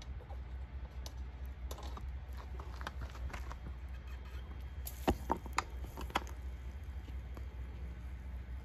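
Scattered faint metallic clinks and knocks from a steel crucible on its lifting hook as it is raised and swung into position for pouring molten aluminum, with a few louder knocks about five to six seconds in, over a low steady rumble.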